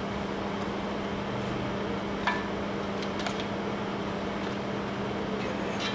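Steady machine hum with a low drone, like ventilation or plant running, with a few light taps as paint stripper is brushed onto cast metal drill press parts.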